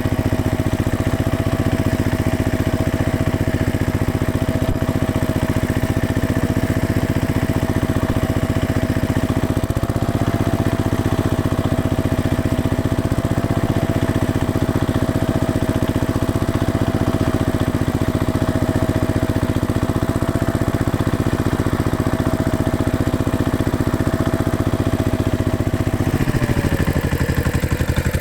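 Tractor engine running steadily, its pitch dropping near the end as the engine slows.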